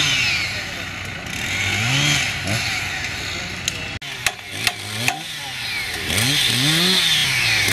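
An engine revving up and down again and again. About halfway through come three sharp hammer blows, half a second apart, on the steel bracket that clamps the wooden maypole.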